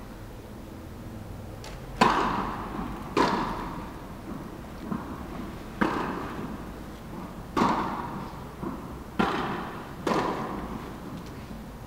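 Tennis rally: a ball struck by rackets and bouncing on the court, about six sharp pops a second or two apart, each ringing briefly in the echo of an indoor tennis hall. The loudest hit comes about two seconds in.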